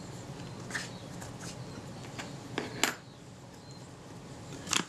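Faint rubbing and handling as a cotton bud scrubs a small toothed aluminium lens ring, with a few short scratchy clicks, the loudest just before the end.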